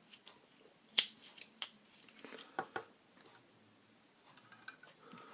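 A few sharp clicks and light taps of handling a lithium cell in its plastic battery holder, the loudest about a second in, while a poor contact in the holder is being checked.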